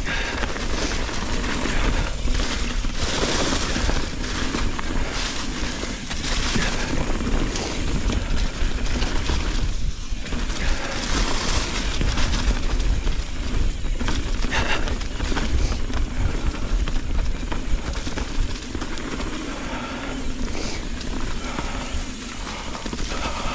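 A mountain bike riding down a leaf-covered dirt trail: tyres rolling over leaves and dirt, with frequent short rattles and knocks from the bike over bumps, over a steady low rumble of wind on the microphone.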